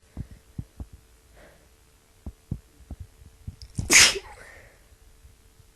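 A woman sneezes once, sharply and loudly, about four seconds in, with a faint intake of breath before it; she has a bad tickly cold. Soft low thumps come and go before the sneeze.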